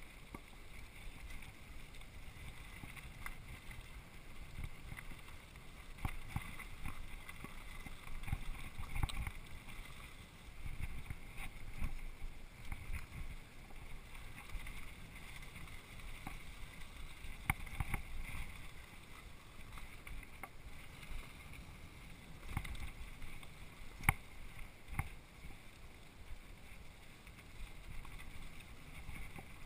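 Mountain bike rolling fast down a dirt singletrack: rumbling tyre and trail noise with wind buffeting the microphone, broken by a few sharp clacks of the bike rattling.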